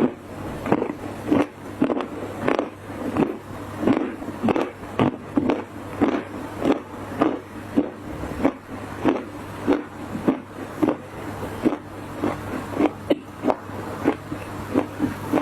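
Soft dry clay crunching and crumbling in a steady run of crunches, about two a second.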